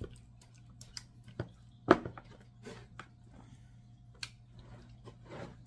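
Wet squishing and the clicks and taps of a metal fork against a plastic tub as raw chicken pieces are turned in a thick yogurt marinade, with one louder knock about two seconds in.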